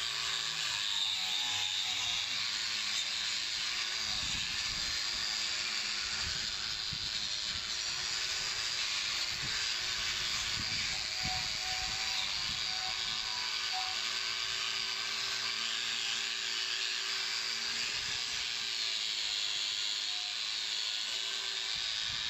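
Electric angle grinder with a wire brush wheel, running steadily while scrubbing old paint off a metal door to clean it for repainting.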